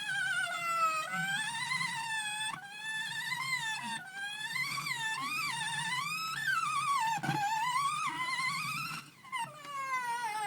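Circuit-bent toy sound effects machine producing a wailing electronic tone whose pitch wobbles and slides up and down, dropping out briefly near the end.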